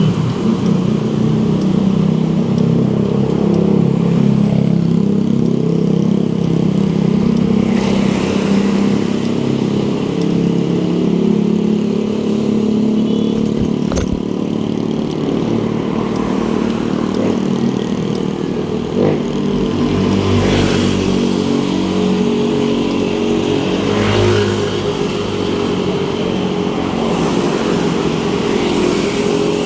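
Road traffic running close by: car and motorcycle engines in a steady loud din, with vehicles passing about a quarter of the way in and twice more in the last third. A single sharp click about halfway through.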